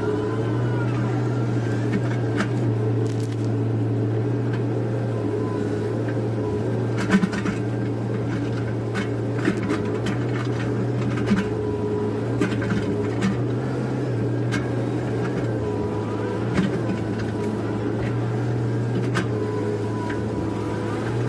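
Komatsu PC130F excavator's diesel engine running steadily under digging load, heard from inside the cab, with a few sharp knocks from the working machine.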